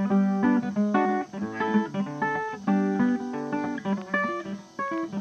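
Background music: plucked acoustic guitar with strummed chords.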